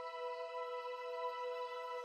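Ambient background music: a steady held chord with no change in pitch.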